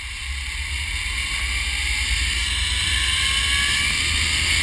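Zipline pulley running along a steel cable: a whirring hiss that grows louder and a faint tone that rises as the rider picks up speed, with wind rushing over the microphone.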